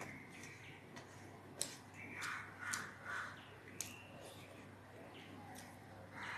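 Quiet hand-eating sounds: fingers mixing rice on a steel plate, chewing, and three sharp mouth clicks.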